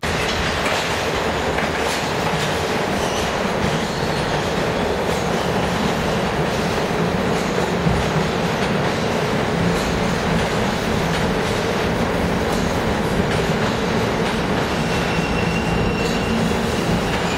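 Stainless-steel New York City subway train running past the platform, a steady noise of wheels on rails. A brief high squeal comes about fifteen seconds in.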